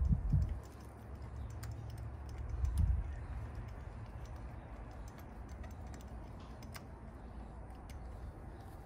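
Light, irregular metallic clicks and taps of hand tools as a spark plug is fitted into the plug well of a Chevrolet Cruze's 1.4-litre turbo engine, over a low rumble that swells at the start and again about three seconds in.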